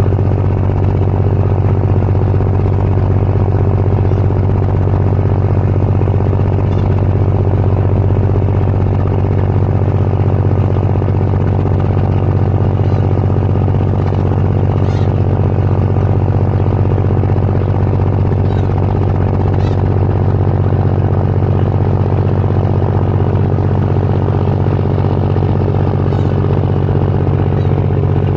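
A large engine running steadily: a constant low hum with evenly spaced harmonics and no change in speed.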